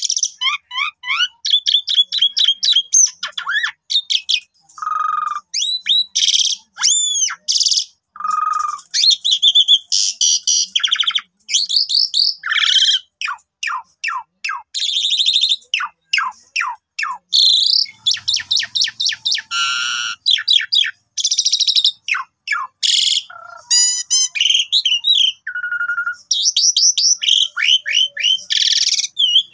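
Asian pied starling (jalak suren) in full song: a long, varied run of quick whistled notes, falling and rising sweeps, rapid trills and harsh chattering phrases, with only short pauses between them.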